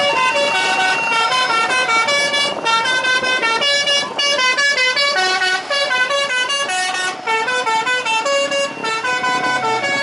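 Multi-tone musical bus horn, an Indonesian 'telolet' horn, playing a quick tune of stepped notes almost without a break.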